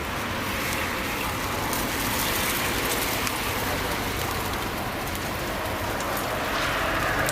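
Nom krok batter sizzling steadily in a hot pan, with light crackling.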